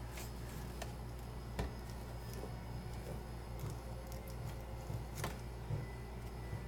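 Light clicks and knocks of bottles and containers being handled in an open refrigerator, over a steady low hum; the two sharpest knocks come about one and a half seconds in and a little after five seconds.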